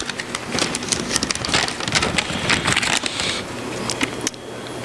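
A folded sheet of paper being unfolded and handled close to a headset microphone: loud, irregular rustling and crackling that thins out near the end.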